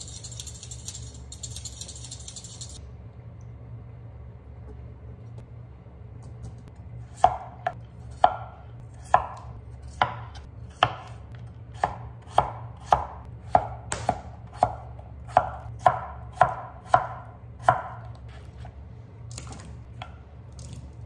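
A chef's knife chopping peeled potatoes into chunks on a wooden cutting board, about seventeen sharp chops at roughly two a second. The chopping starts about a third of the way in and stops shortly before the end.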